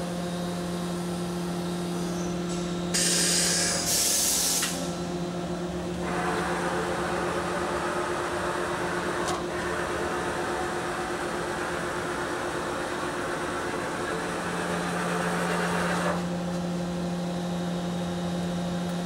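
Kuraki KBT-11WA CNC horizontal boring mill running under its program, with a steady electrical and hydraulic hum. There is a short burst of hiss about three to five seconds in. From about six to sixteen seconds a louder rushing machine noise plays over the hum.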